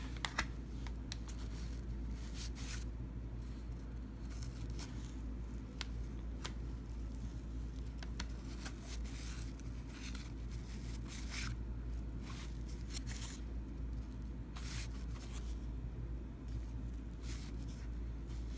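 Paper trading cards from a 1990 Fleer basketball box being handled and slid against one another: irregular soft scrapes, rustles and clicks over a steady low hum.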